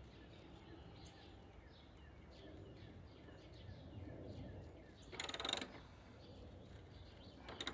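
Hyper Tough socket wrench ratchet clicking in two short bursts, about five seconds in and again near the end, as it turns a fastener. Faint bird chirps run behind it.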